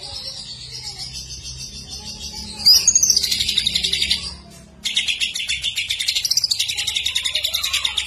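Male green leafbird (cucak ijo) singing continuously in a high, warbling song that turns louder into a fast, rattling trill about two and a half seconds in. The trill breaks off for half a second just past halfway, then starts again abruptly and runs on fast and even.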